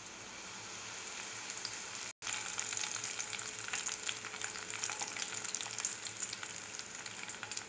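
Round dried red chillies sizzling and crackling in hot sesame oil with curry leaves, in a steel pan taken off the heat for a pickle tempering, while a steel ladle stirs them. The sizzle drops out briefly about two seconds in.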